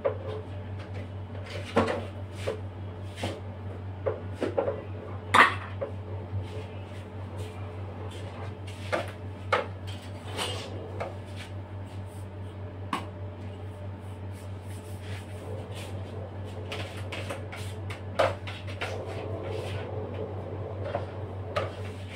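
Irregular clicks and knocks of cake scrapers tapping and scraping against a plastic cream tub and a cake turntable while cream is smoothed onto a cake, the sharpest knock about five seconds in, over a steady low hum.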